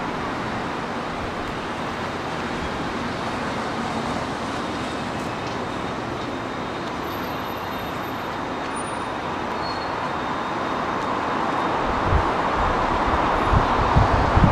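Steady hum of distant city road traffic. In the last couple of seconds low gusty rumbles of wind on the microphone come in over it.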